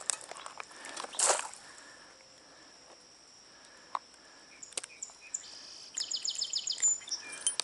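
A brief splash of stream water about a second in as a hand is dipped to wet it. Under it runs a steady high insect drone, and near the end a bird gives a quick run of high chirps.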